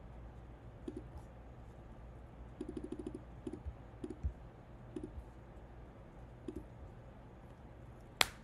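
Computer mouse and keyboard clicks, scattered and light, with a quick run of about eight clicks a few seconds in and one sharp, much louder click near the end, over a faint low hum.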